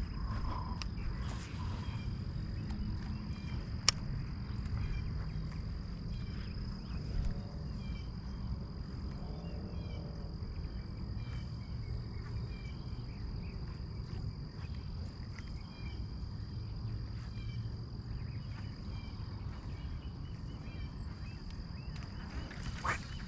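An insect trilling on one steady high note throughout, over a louder, steady low rumble. A single sharp click comes about four seconds in.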